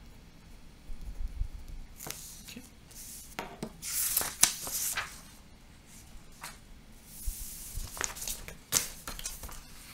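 Sheets of printed paper rustling and crackling as pages are lifted and turned over, in several bursts with a few sharp snaps of paper.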